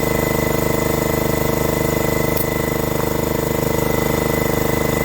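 Small piston air compressor (tire inflator) running steadily with a rapid, even chugging, pumping air into a tire.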